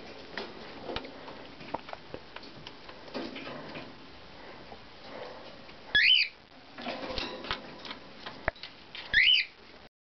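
Cockatiel giving two short, loud rising chirp calls about three seconds apart, with soft clicks and rustles in between.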